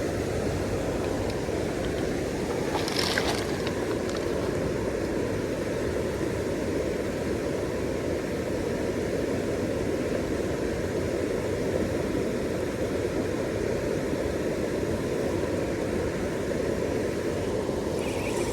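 Steady low rushing of creek water flowing over rocks, with one brief click about three seconds in.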